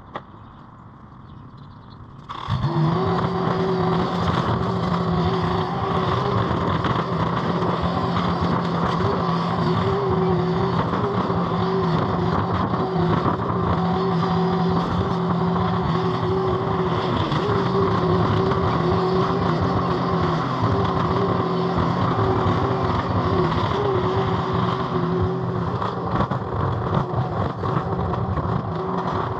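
Mini skid steer's engine running steadily at a constant pitch. It comes in abruptly about two seconds in, after a quieter moment.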